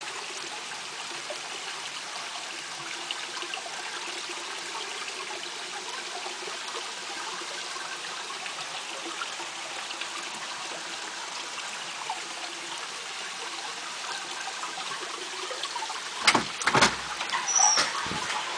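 Hot-spring water flowing steadily into a free-flowing (kakenagashi) open-air bath, an even trickling wash of water. Near the end come a few sharp knocks and a clatter, with a door being opened.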